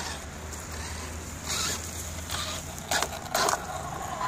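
Kyosho Inferno VE 1:8 electric RC buggy on loose gravel: four short bursts of the tyres scrabbling and throwing stones, in the second half.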